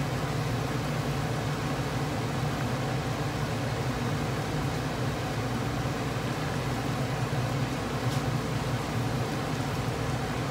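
Chicken frying in a sugar-browned stew sauce in a pan on high heat, a steady sizzle over a steady low hum.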